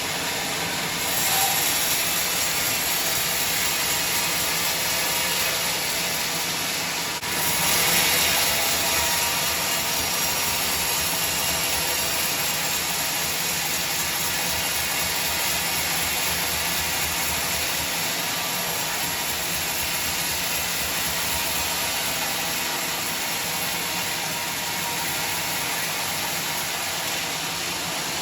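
Power saw cutting wood, a loud, steady noisy running that grows louder about a second in and again after a brief dip at about seven seconds.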